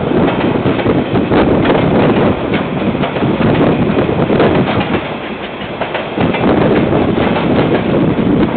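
KiwiRail freight train's container wagons rolling past, a steady rumble with wheels clicking and clattering over the rail joints, briefly quieter about five seconds in. Heard through a security camera's microphone.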